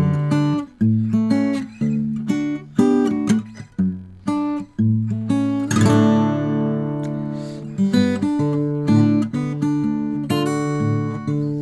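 Steel-string acoustic guitar played fingerstyle: individually plucked melody notes over a picked bass line. About six seconds in, a strummed chord rings out and fades.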